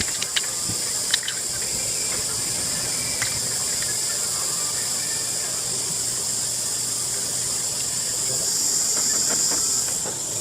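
A steady, high-pitched hiss, with a few faint clicks in the first second.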